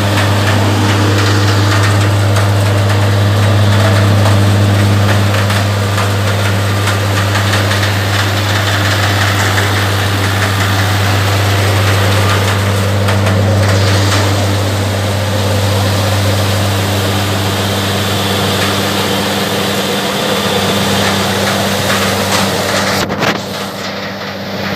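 Hasatsan H 900 Typhoon orchard blower running steadily, a loud drone with a strong low hum, easing off slightly near the end.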